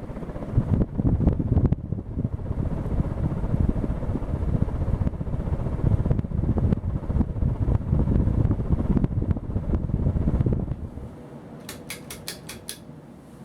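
CEC 52-inch spinner ceiling fan running, its airflow buffeting the microphone as a loud, gusty, low rumble that falls away about eleven seconds in. Near the end there is a quick run of about six sharp clicks.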